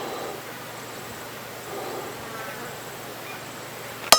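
A single heavy club-hammer blow, metal on metal, about four seconds in, with a short metallic ring after it, cutting into a metal spoon during cold forging.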